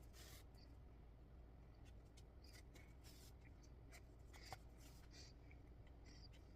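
Near silence with faint scattered rustles and soft ticks, from cross-stitch needle and thread being worked through the fabric.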